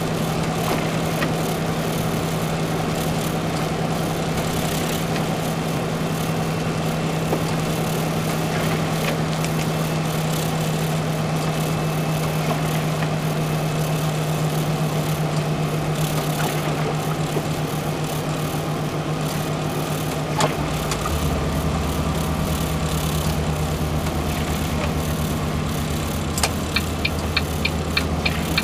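Truck engine drone heard from inside the cab of a gravel truck driving on a wet road, steady, with road and tyre noise over it. About twenty seconds in a deeper note joins the engine sound, and near the end a regular ticking starts, about two ticks a second.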